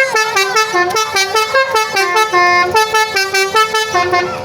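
Basuri telolet horn, a multi-tone musical air horn on a pickup truck, playing a fast tune of short notes, about five a second. The melody stops just before the end.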